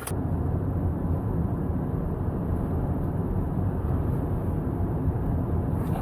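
Steady low road and engine rumble heard inside the cabin of a moving vehicle.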